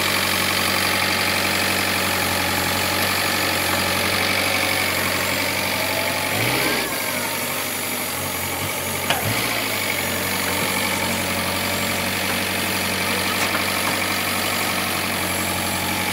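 Forklift engine idling steadily, with two brief knocks midway.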